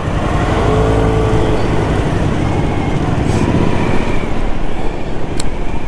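Motorcycle engine running at low speed close by, over the steady rumble of surrounding scooters and cars in slow, congested city traffic.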